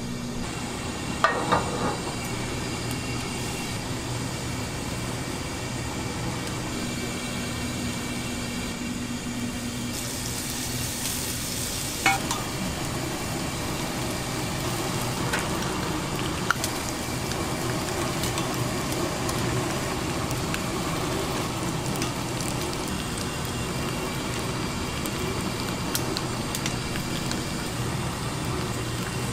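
Shrimp and asparagus sizzling on a hot grill, a steady frying hiss, with a few sharp clicks of metal tongs. The loudest clicks come about a second in and about twelve seconds in.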